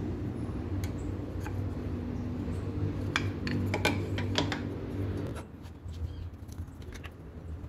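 Two resin-and-wood knife handle scales being handled, knocking against each other and set down on a wooden table: a run of sharp clicks and taps a few seconds in, and a few more near the end. Underneath, a low background rumble drops away partway through.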